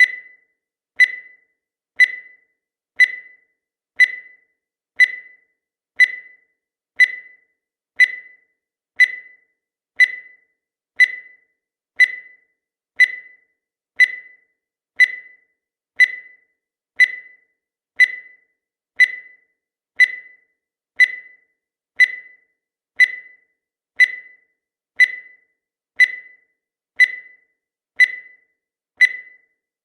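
Countdown timer sound effect: a short, high-pitched tick once a second, each fading quickly, with silence between.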